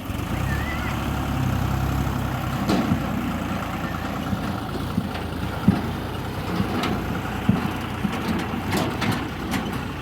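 Diesel engine of a JCB backhoe loader running steadily, with a series of sharp knocks and clanks from about three seconds in.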